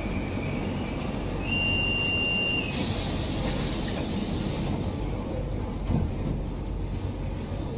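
Metro train carriage rumbling steadily. About a second and a half in, a single held electronic beep sounds for about a second. A hiss follows for about two seconds.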